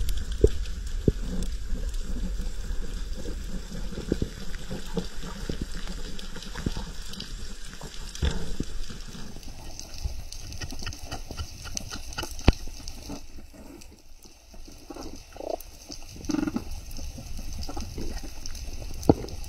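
Underwater sound picked up by a camera in the water: a low rush of moving water with many scattered clicks and knocks. About ten seconds in the sound changes and a steady high hiss joins it.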